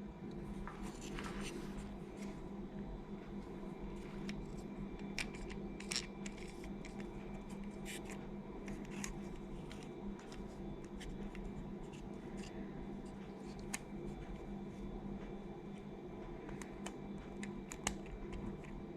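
Small scattered clicks and light scrapes of a screwdriver prying at the plastic case of a quartz clock movement, over a steady low hum.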